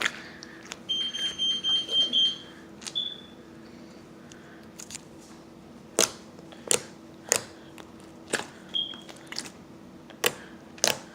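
A high electronic beep sounds for about a second and a half near the start, with two short chirps later. About halfway through, a run of six sharp pops follows, typical of air bubbles popping as slime is squeezed and stretched.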